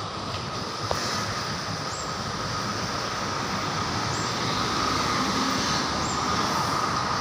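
Steady road traffic noise from a multi-lane road below, with a faint steady whine and a short high chirp about every two seconds.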